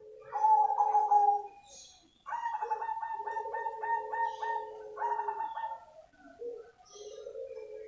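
Cemani zebra dove (perkutut) singing its cooing song: several phrases of soft coos, with a run of quick repeated notes, about three a second, in the middle.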